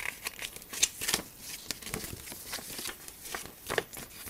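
Paper and plastic bags rustling and crinkling as hands handle the contents of a plastic model kit box: a printed sheet and cellophane-bagged sprues. The sound is a string of irregular short crackles and taps.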